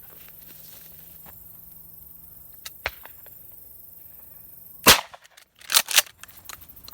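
Shotgun fire: a couple of faint sharp reports about three seconds in, then a loud close shotgun blast about five seconds in, followed within a second by two more loud bangs.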